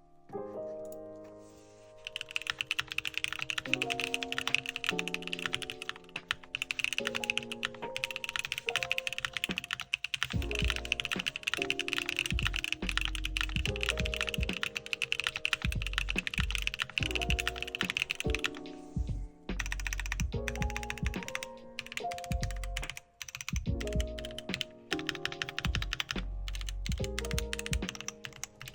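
Typing on a Keychron Q5 mechanical keyboard fitted with Gateron Luciola switches and KKB Artlife keycaps: quick, steady keystrokes from about two seconds in, with a brief pause past the middle. Background music plays throughout.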